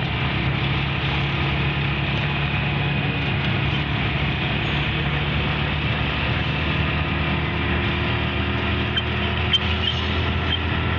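Steady engine and road noise of a car driving in city traffic, with one short sharp click about nine and a half seconds in.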